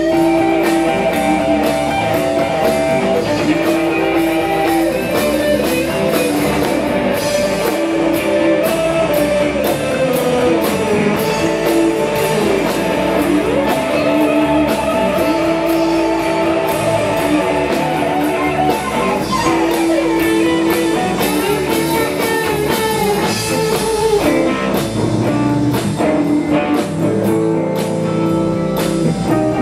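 Live blues band playing an instrumental stretch: electric guitar over electric bass and a drum kit, steady and loud.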